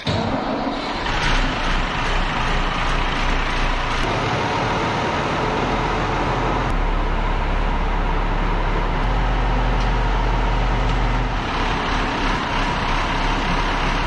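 Ford TW-20 tractor's six-cylinder turbo diesel engine running steadily.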